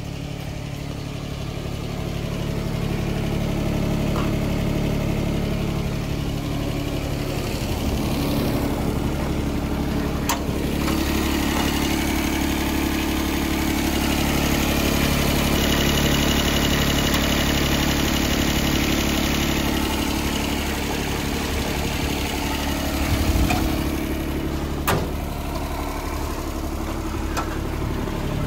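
JCB 16C-1 mini excavator's diesel engine idling steadily. Through the middle stretch it is heard close to the open engine bay, where it has more hiss.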